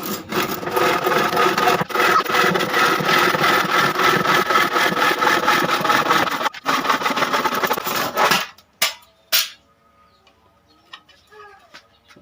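Saw cutting through a wooden board, a dense fast-repeating rasp that stops about eight seconds in, followed by a couple of light knocks.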